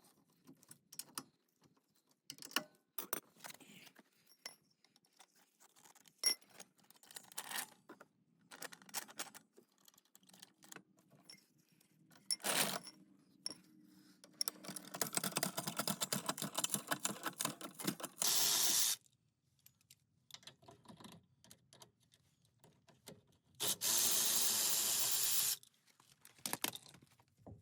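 Metal tools clicking and clinking while a rear brake assembly is taken apart, with a few seconds of rapid rattling in the middle and two steady bursts of a power tool, a short one and then one about two seconds long.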